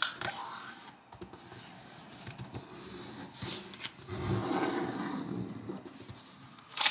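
Origami paper being folded into a triangle and creased by hand on a tabletop: papery rustling and rubbing as fingers run along the fold, swelling about two-thirds of the way through, with a sharp crackle near the end.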